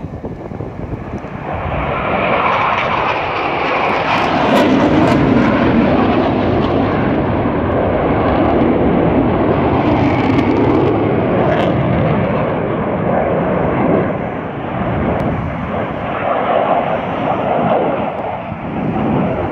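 Two military jets flying past overhead: a loud, rushing jet-engine noise that builds over the first couple of seconds, holds steady, eases off briefly and swells again near the end.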